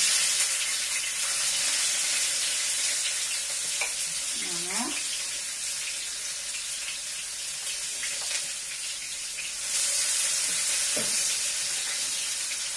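Onions going into hot olive oil in a frying pan and sizzling steadily as they are stirred with a spatula; the sizzle gets louder again about ten seconds in as more vegetables go into the pan.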